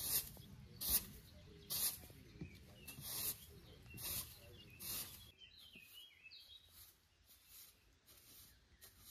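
Straw broom sweeping brick steps: rhythmic swishes at about one stroke a second, stopping about five seconds in. Then a few faint bird chirps.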